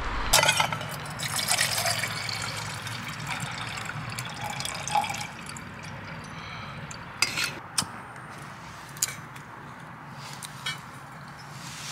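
Water poured from a bottle into a small camping pot, gurgling for several seconds and then fading. A few sharp clicks follow as a lighter is struck to light the stove.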